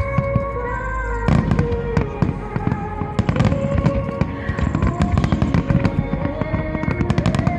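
Phoenix fireworks shells bursting and crackling in quick, uneven succession, sharp bangs and rattling crackle over slow music with long held notes that play along with the display.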